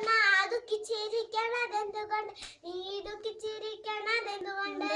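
A young girl singing unaccompanied, holding long notes in a high child's voice, with a short break about two and a half seconds in.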